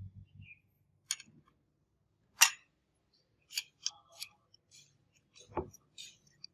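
Handling noises from small parts and tools: a series of sharp clicks and light taps, the loudest about two and a half seconds in, with a duller knock a little past five seconds.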